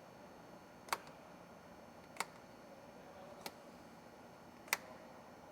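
Black plastic covers on a boat's battery rocker switches being slid up one after another, each snapping into place with a short, sharp click; four clicks about a second and a quarter apart.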